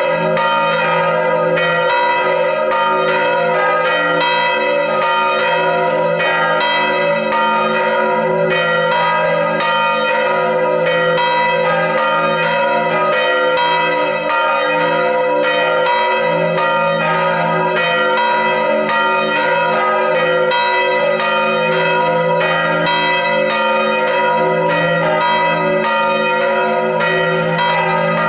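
Swinging bronze church bells ringing in full peal, their clapper strikes coming thick and overlapping into one continuous ringing.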